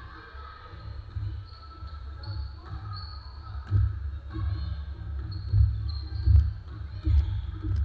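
Basketball bouncing on a hardwood court floor: irregular dull thuds that come thicker and louder in the second half.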